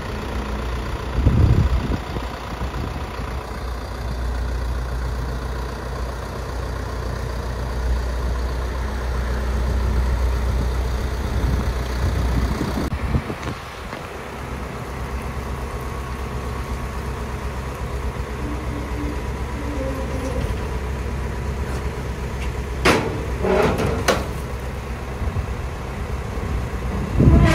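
Box truck's engine idling steadily, louder in the first half. Near the end the steel rear liftgate platform clanks several times as it is let down, with one loud knock last.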